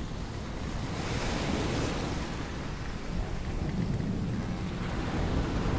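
Storm ambience: a continuous low rumble of thunder under a steady hiss of rain and wind.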